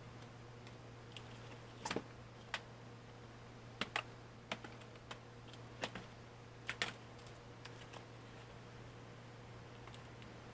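Sharp plastic clicks and snaps, about a dozen irregular ones over several seconds, as the Chromebook's plastic lower case is pried loose and lifted off its base.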